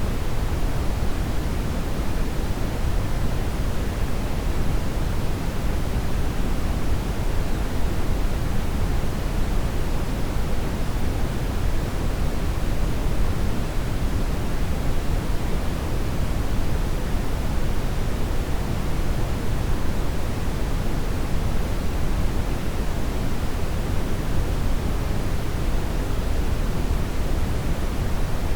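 Steady brown noise: an even, unbroken hiss weighted toward the low end.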